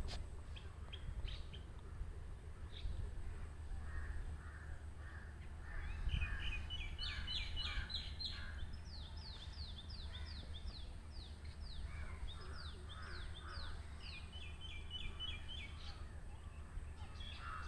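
Small birds chirping in quick runs of short, falling high notes, with crows cawing now and then, over a low steady rumble.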